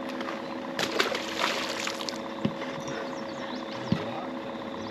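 A bass released over the side of a boat splashing into the water about a second in. Two sharp knocks on the boat follow, over a steady hum, with birds chirping near the end.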